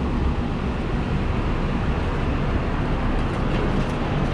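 Steady street ambience of a busy city road: a continuous low rumble of passing traffic.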